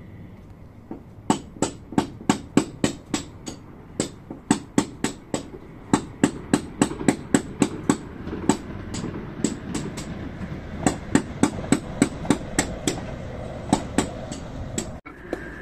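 A long series of sharp knocks, about two to four a second in uneven runs, much louder than everything else. Behind them, the low steady noise of a passing train rises from about eight seconds in.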